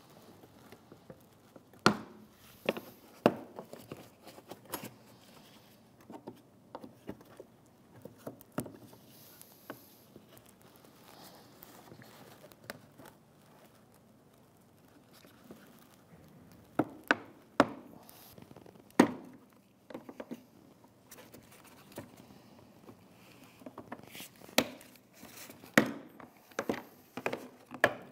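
Plastic locking tabs of a Hyundai Elantra front lower grille clicking and snapping as a metal hook tool pries them back from the bumper cover. The clicks come irregularly, with louder snaps about two seconds in, around the middle, and near the end.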